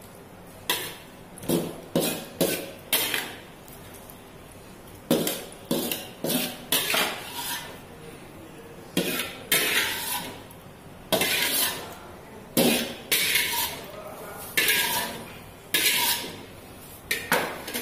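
Metal spatula scraping and clanking against a thin aluminium wok as the shrimp-and-egg stir-fry is scooped out onto a serving plate. The scrapes and clinks come in irregular clusters, some ringing briefly.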